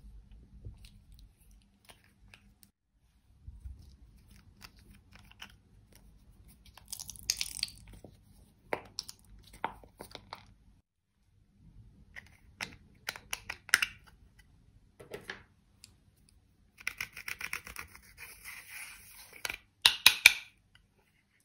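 Slime and makeup being handled: small plastic clicks and soft squelches as slime is squeezed from tubes onto a dish of clear slime. Near the end comes a denser run of crackly scraping as a small metal tool works the crumbled eyeshadow.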